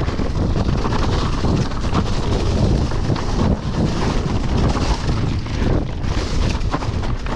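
Heavy wind buffeting on the microphone, with low rumble and scattered knocks from a mountain bike riding fast down a rough trail.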